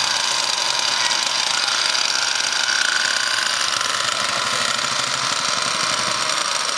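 Small glow-fuel (nitro) engine of a radio-controlled car idling with a steady high-pitched buzz.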